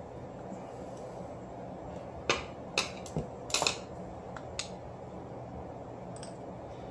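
About six sharp clicks from handling a Daiwa Sealine 30SHA conventional casting reel while its left side plate is being worked free, bunched between about two and five seconds in, over faint room tone.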